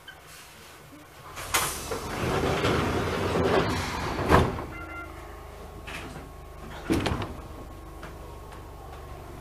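Sliding passenger doors of an Enshu Railway 1000-series train closing, a noisy slide that ends in a sharp thud about four seconds in. A second knock follows a few seconds later over the steady hum of the train.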